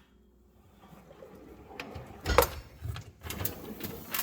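Tools and drawers of a metal tool chest being handled: a few separate knocks and clinks, the strongest about two and a half seconds in, after a near-quiet first second.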